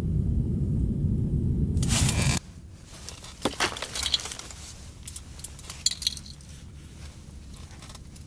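A steady low rumble that ends abruptly about two and a half seconds in, just after a short hiss. Then a run of small, sharp clicks and clinks of hard objects.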